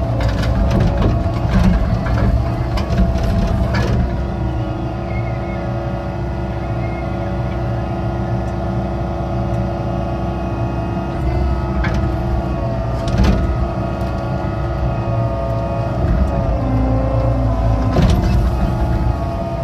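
Excavator's diesel engine running steadily under hydraulic load while digging a ditch, its pitch shifting slightly a few times. Sharp knocks come in a cluster over the first few seconds and again a few times later.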